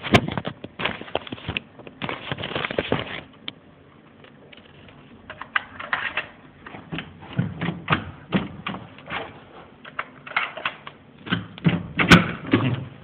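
Hotel room door handle and lock being worked by hand: irregular clicking, knocking and rattling, with a quieter spell a few seconds in and sharp clicks just after the start and near the end.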